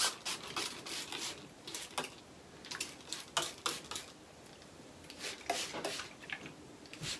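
Hand-held plastic spray bottle spritzing rice water onto hair: a quick, irregular series of short sprays.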